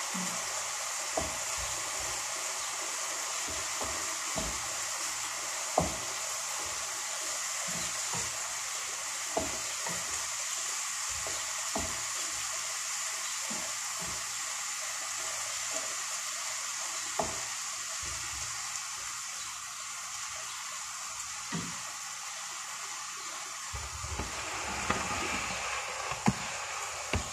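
A spatula stirring and knocking against a frying pan of ground chicken and vegetables, sharp clicks every second or two, over a steady hiss of the mixture cooking down on a gas burner. Near the end a low rumble of the phone being handled.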